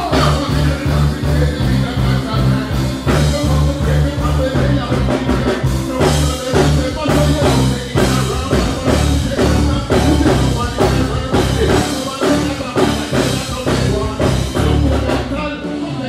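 Loud live dancehall music over a stage sound system: a heavy, steady bass beat with band instruments, and performers' voices through handheld microphones over it.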